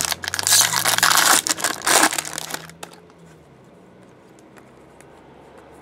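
Foil trading-card pack wrapper from a Bowman Chrome pack crinkling loudly as it is torn open and crumpled for the first three seconds or so, then only faint room tone.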